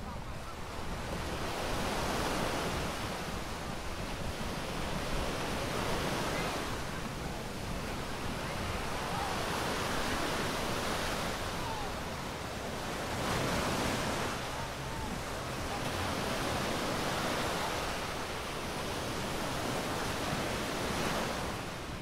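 Small ocean waves breaking and washing up the sand, the surf swelling and fading every few seconds, with a low rumble of wind on the microphone.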